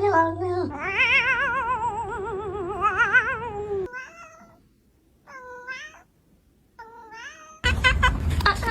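Domestic cat yowling in a long, drawn-out call that wavers up and down in a fast warble, the 'singing' of the title. It is followed by three short meows, then near the end by a sudden louder, noisier stretch with clicks.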